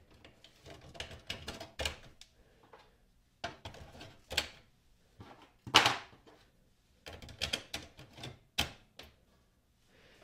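Epson 222 ink cartridges being pushed into the print-head carriage of an Epson WorkForce inkjet printer: several groups of sharp plastic clicks and knocks as each cartridge is seated. The loudest knock comes about six seconds in.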